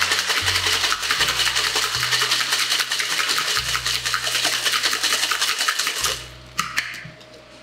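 Ice rattling fast and hard inside a stainless-steel cocktail shaker being shaken vigorously to chill and froth an espresso martini. The rattle stops about six seconds in, followed by a sharp metal click or two.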